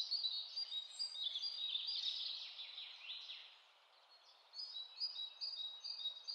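Birds chirping faintly in the background: a string of short, high chirps over a light hiss, cutting out completely for about a second in the middle.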